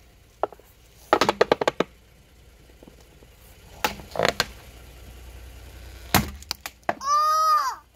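Hollow plastic owl decoy cracking and crunching as a car tyre rolls over and flattens it: a quick run of crackles a little after a second in, more around four seconds, and one sharp loud crack about six seconds in as the plastic splits.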